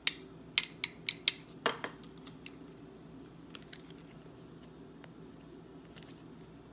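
Metal rings clinking against each other and tapping on their cardboard display card as they are handled: a quick run of sharp clicks in the first two seconds, then a few scattered light ticks.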